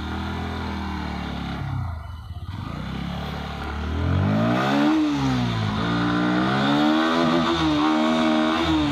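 Motorcycle engine pulling away and accelerating. Its pitch holds level at first, rises from about four seconds in, drops briefly near five seconds at a gear change, then climbs again and holds steady.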